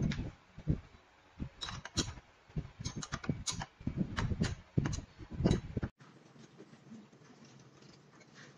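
Irregular clicks and knocks of a flat metal spanner on an indoor cycling bike's seat clamp bolt and of the saddle being tilted on its clamp, stopping suddenly about six seconds in; faint room tone after.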